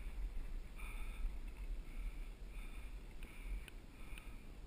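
Mountain bike rolling fast down a dirt singletrack: low rumble of the tyres and frame over the trail, with wind rushing over the action camera's microphone. Short higher-pitched sounds and ticks recur about every half second to a second.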